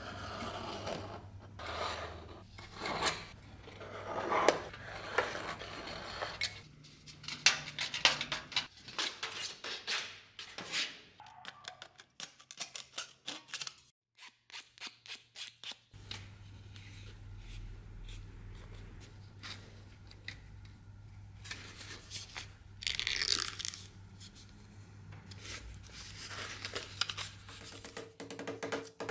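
Thin brass sheet being cut by hand: scraping and a run of crisp snipping cuts, then quieter handling of the cut piece after a brief silent gap.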